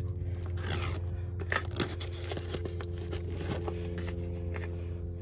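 A package being cut and torn open, with irregular scraping and rustling of the wrapping, over a steady low hum.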